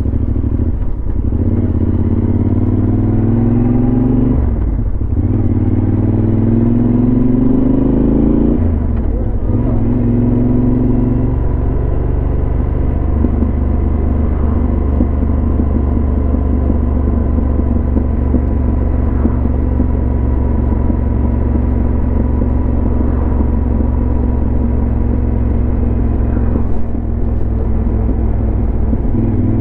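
Yamaha XT1200Z Super Ténéré's parallel-twin engine through a LeoVince SBK exhaust, accelerating: the revs rise, drop at a gear change about five seconds in, rise again and shift again around nine seconds, then hold a steady cruise.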